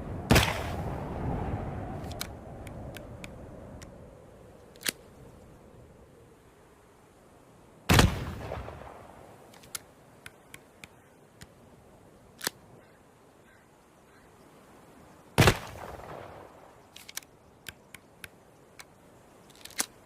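Flintlock pistol firing three times, about seven to eight seconds apart, each shot followed by a fading rumble. Fainter sharp clicks sound between the shots, several in quick succession near the end.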